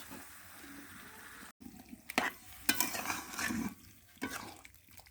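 Stirring chicken and potato curry in a kadai: a faint hiss at first, then a series of sharp clinks and scrapes of a utensil against the pan.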